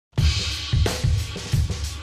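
Title theme music kicking in suddenly with a cymbal crash over a driving drum-kit beat of kick and snare.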